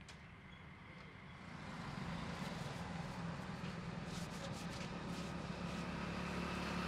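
A motor vehicle's engine running, growing louder about two seconds in and then holding steady as a low hum, with a few light clicks over it.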